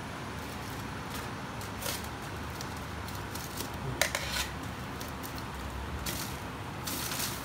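Shrimp roasting on a bed of salt in a pan: scattered sharp clicks and pops of the salt over a steady hiss.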